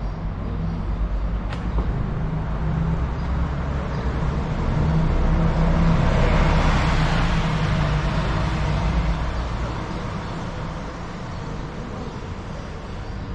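Road traffic: a motor vehicle passes close by, swelling to loudest about halfway through and then fading, over a low engine rumble that dies away near the end.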